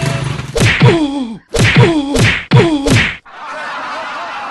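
A man's loud cries, about four of them, each sliding down in pitch and landing with a smack, as one man beats another. It cuts off suddenly near the end, leaving a faint steady background with a light tune.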